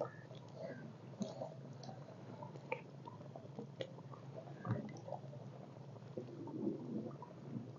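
Soft, faint squelching of hands working potato slices through wet pakora batter in a bowl, with scattered small clicks and a dull thump about four and a half seconds in.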